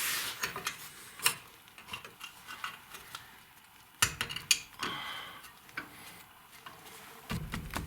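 Light metallic clicks and clinks as the spring clip is worked onto a rear disc-brake caliper, with a few sharp clicks standing out; a low rumble comes in near the end.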